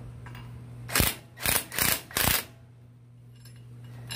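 Cordless impact wrench running on a lug nut on a truck's rear wheel stud in four short bursts, one after another within about a second and a half.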